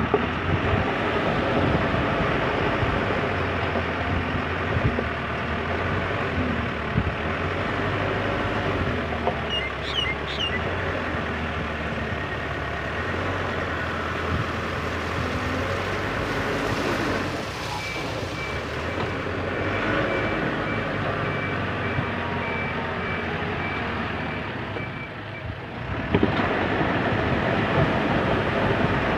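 JCB 3CX backhoe loader's diesel engine running under work, with a reversing alarm beeping steadily for several seconds in the second half. The engine note picks up again near the end.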